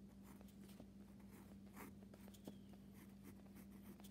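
Handwriting on a paper worksheet as the word "rectangle" is written out: faint, short scratching strokes of the writing tip on paper, over a faint steady hum.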